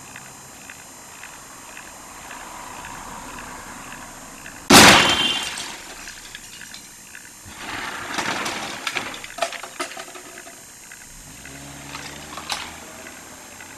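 A vehicle collision: one sudden loud crash about five seconds in, dying away over about a second, followed a couple of seconds later by irregular clattering and sharp knocks.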